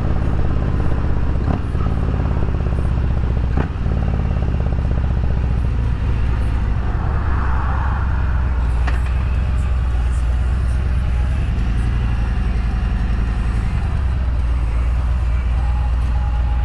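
2021 Harley-Davidson Road Glide Special's Milwaukee-Eight 114 V-twin running at low speed. Its pitch falls over the first few seconds as the bike slows, then it runs steadily at low revs, with a few short clicks.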